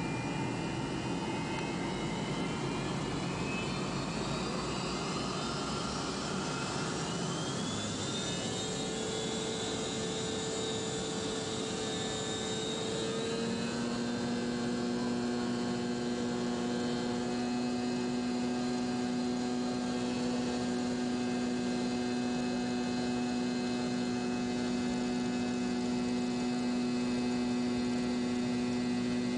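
The McDonnell Douglas MD-82's twin rear-mounted Pratt & Whitney JT8D turbofans, heard from inside the cabin, spooling up for takeoff. A rising whine over the first several seconds shifts to a new pitch about halfway through, then settles into a steady drone as the takeoff run begins.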